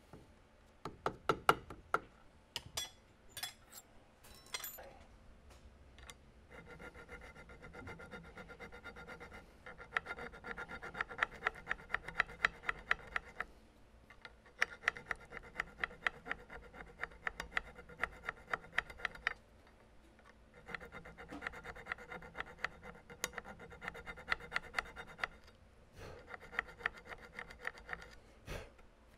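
Small hand file scraping back and forth on a threaded steel chamber sleeve clamped in a vise. A few separate scrapes come first, then runs of steady strokes, about three a second, each with a metallic ring, broken by short pauses.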